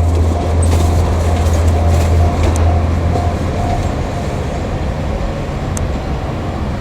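JR Kyushu KiHa 140 diesel railcar passing: a strong low engine hum for about the first two seconds, then a steady wheel-and-rail rumble. A level crossing warning bell rings over it at about two strokes a second through the first half.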